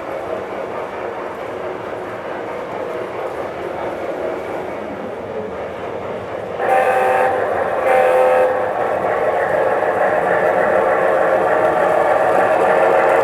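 Steady running noise of an LGB G-scale model train, then two short horn blasts from an American diesel locomotive's sound module about halfway through, followed by a louder steady pitched running sound.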